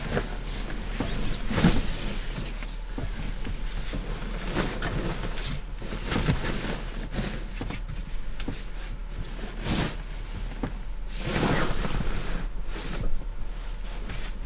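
Fabric rustling and swishing in irregular bursts as a padded sleeping bag is shaken out, spread and knelt on, over a steady low hum.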